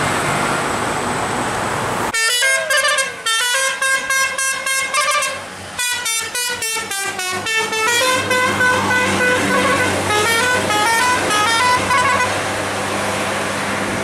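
Tour bus's musical 'telolet' air horn playing a fast tune of short stepped notes for about ten seconds, with a short break partway through. Engine and road noise sit under it and are alone at the start.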